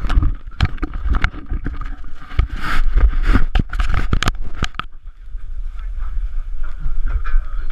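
Steady low rumble of a dive boat out on the water, with a run of sharp knocks and scrapes through the first five seconds or so as the action camera is handled and set in place, then fewer.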